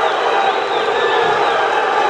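Boxing arena crowd cheering and shouting at a steady, loud level.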